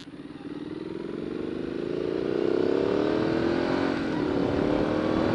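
Triumph Street Scrambler's 900cc parallel-twin engine with a 270-degree crankshaft, through its stock exhaust, pulling away and accelerating: the engine note rises in pitch and loudness, dips briefly about four seconds in, and climbs again.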